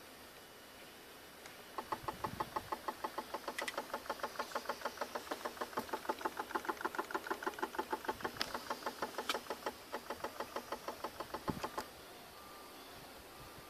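BMW E36 A/C compressor's magnetic clutch clicking in a fast, even train of about six clicks a second while the INPA diagnostic test drives it, with the engine not running. The clicking starts about two seconds in and stops abruptly about ten seconds later.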